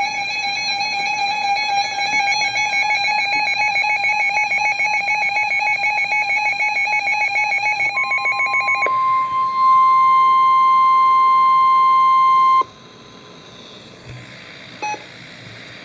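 Emergency alert tones over weather radio: a rapidly pulsing electronic buzz for about nine seconds, then the steady single-pitch NOAA Weather Radio alert tone, which cuts off sharply about three-quarters of the way through and leaves faint radio hiss with a couple of clicks.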